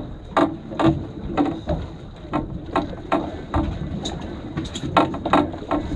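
Conventional fishing reel being cranked against a fish, a repeated clicking and knocking about twice a second.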